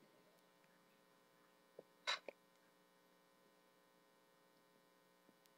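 Near silence: a faint steady electrical hum, broken once about two seconds in by a brief soft sound.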